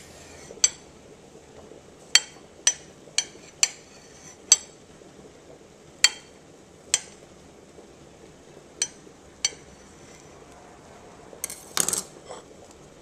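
Knife blade clicking sharply against a plate while slicing imitation crab sticks into chunks, about ten taps at uneven intervals, with a brief clatter near the end.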